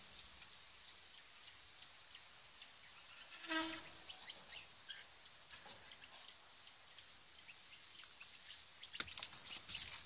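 Quiet outdoor garden ambience with a steady high hiss. One short pitched call sounds about three and a half seconds in, and a few light clicks and knocks come near the end.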